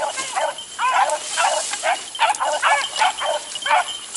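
A pack of beagles giving tongue on a rabbit's trail: short, overlapping barks from several hounds, about three a second.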